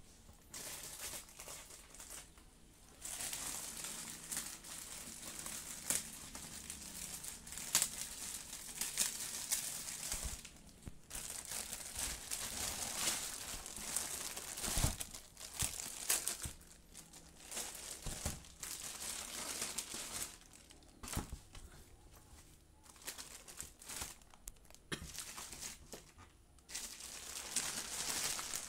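Plastic packaging around a pair of new boots crinkling and rustling as it is handled and pulled open, in irregular bursts with short pauses and a few sharp snaps.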